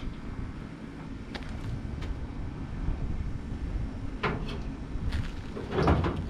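A few scattered knocks and clunks, like parts or doors being handled, over a steady low rumble. The loudest knock comes near the end.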